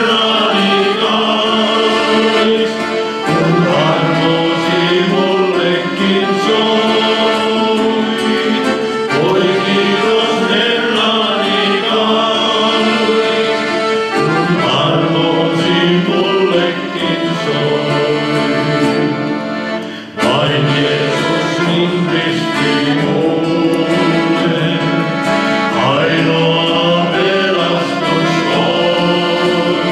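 Men's vocal group singing a gospel song with accordion and acoustic guitar accompaniment, with a brief break in the sound about two-thirds of the way through.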